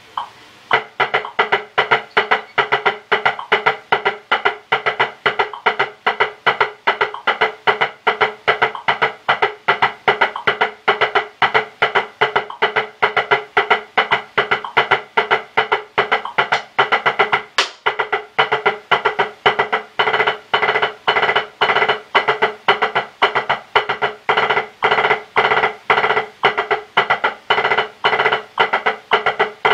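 Drumsticks playing a single-stroke exercise on a drum practice pad: a fast, even stream of strokes with louder accented strokes about twice a second.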